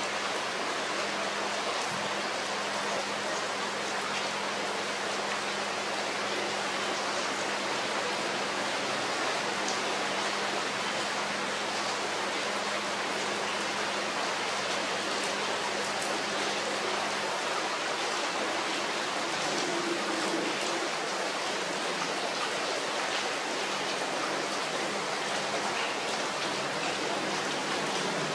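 Heavy rain falling steadily on trees and leaves, an even, unbroken hiss.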